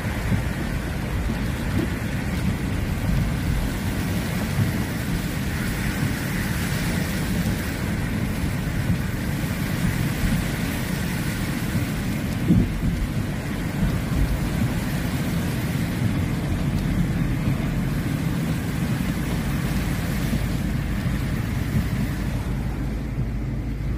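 Heavy rain on a moving car, heard from inside the cabin: a steady, dense rain noise mixed with the low rumble of tyres on a flooded road.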